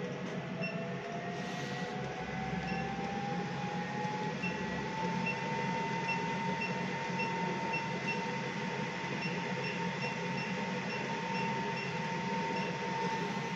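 A lipo laser machine's cooling fan whirring, its pitch rising over the first few seconds and then holding steady. Short electronic beeps sound again and again as the touchscreen buttons are tapped.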